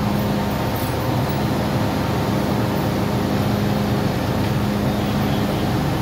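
MTR M-train standing at the platform with its doors open, its on-board equipment and air-conditioning humming under a steady rushing noise. The low hum comes and goes every second or so.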